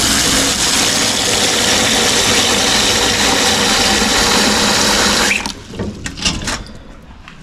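Tap water pouring steadily into a stainless steel pot in a metal sink, filling it. The flow stops about five seconds in, followed by a few light knocks as the pot is moved.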